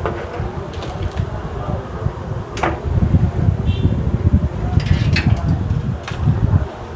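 A computer motherboard being handled and fitted into a small PC case: a few sharp clicks and knocks over a steady low rumble of handling noise.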